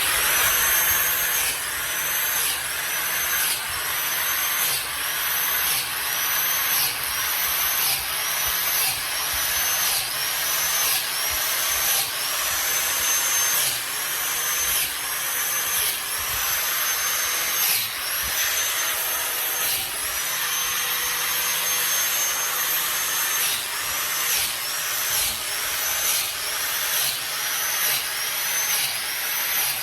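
Angle drill with an adapter and inoculation bit boring a row of holes into an oak log, one after another about once a second. Its high whine climbs, holds and drops with each hole, with a few longer holes near the middle.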